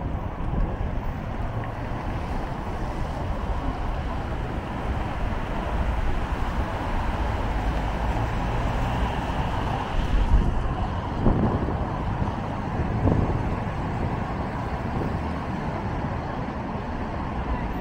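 City street ambience: a steady rush of passing traffic with wind buffeting the microphone, and a couple of brief louder sounds about eleven and thirteen seconds in.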